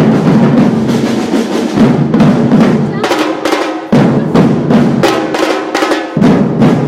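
Percussion ensemble drumming together: a loud, fast rhythm of many drums with hard accented strokes, in phrases that break off briefly and start again.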